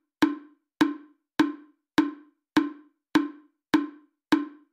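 A plain percussion beat: one short knock repeated evenly, a little under two a second, each dying away quickly.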